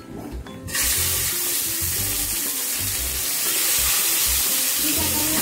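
Turmeric-coated whole fish laid into hot oil in a frying pan. The oil starts sizzling loudly about a second in and keeps up a steady sizzle.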